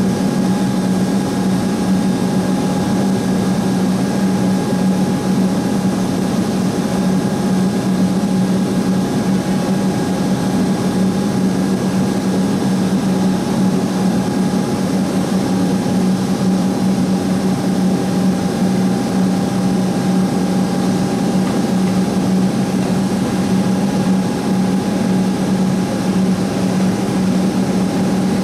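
A steady, unchanging low mechanical hum with a fainter fixed higher tone above it.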